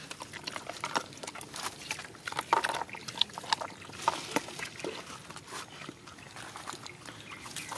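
Dogs eating rice from plastic plates: wet chewing, smacking and lapping in quick, irregular clicks.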